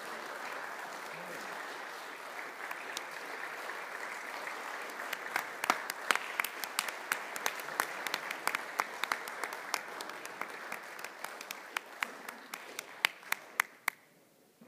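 Applause from a small audience, steady at first, then with sharper single claps standing out in the second half, dying away about a second before the end.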